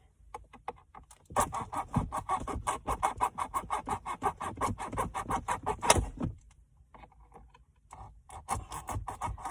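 Fast, even clicking and rattling of the Chrysler 200's plastic dashboard trim as the air control bezel is wiggled and pried loose, ending in a louder knock, then a short pause and more clicking near the end.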